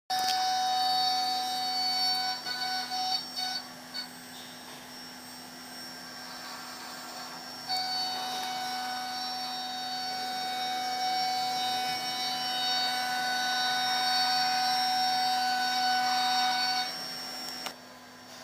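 Suzhou Baoma CNC engraving machine milling a metal shoe mould: a steady high spindle whine with cutting noise. It is loud at first, breaks off several times a few seconds in, runs quieter for a while, comes back loud at about eight seconds, and drops away near the end, leaving a low hum.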